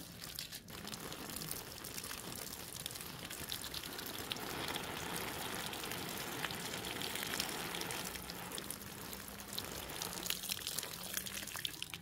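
Water splashing and pattering onto leaves and soil, a steady hiss of falling water with scattered drips.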